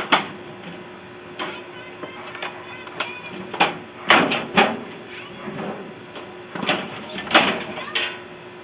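Metal parts of a microwave being handled during disassembly: a series of sharp knocks and clatters with scraping in between, the loudest at the start, about four seconds in and near the end, over a faint steady hum.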